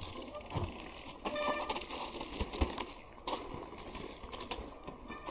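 Mountain bikes rolling down a dirt forest trail: tyre noise over the dirt with scattered clicks and rattles from the bikes.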